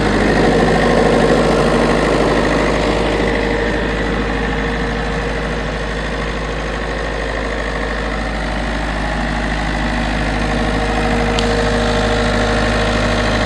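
Engine idling steadily, easing off slightly midway and picking back up, with one brief click near the end.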